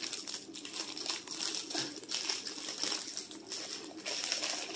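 Clear plastic bag crinkling and crackling in irregular bursts as hands handle it and work a plush dog toy out of it.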